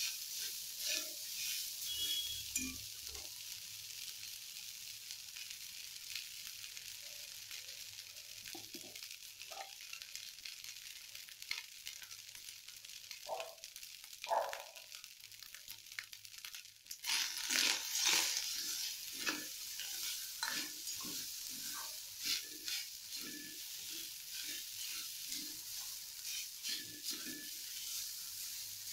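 Cooked rice frying in oil in a kadhai, sizzling steadily while a steel spoon stirs it, with frequent scrapes and clinks of the spoon against the pan.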